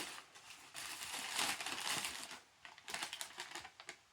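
Newspaper packing being crumpled and rustled by hand, with a run of short, sharp crackles near the end.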